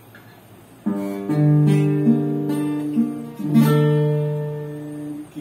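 Acoustic guitar playing the introduction to a waltz. It comes in sharply about a second in with a chord, then rings out a sequence of chords and bass notes, each let to sustain.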